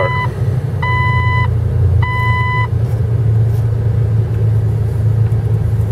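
2003 Jeep Wrangler's engine idling just after starting, a steady low rumble. Over it a dashboard warning chime beeps at a single pitch about once a second, then stops under three seconds in.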